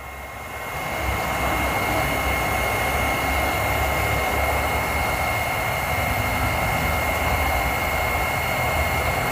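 Electric heat gun blowing hot air steadily against the bottom of a tin of PVC pipe cement: a rush of air with a steady high whine, growing louder over about the first second and then holding even.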